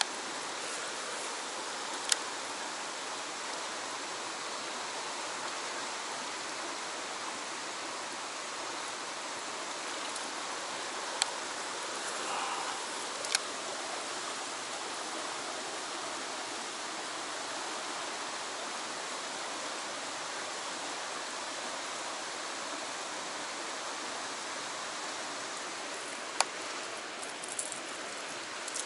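Steady rush of a fast-flowing stream running over rock, with four short sharp clicks on top of it, about two, eleven, thirteen and twenty-six seconds in.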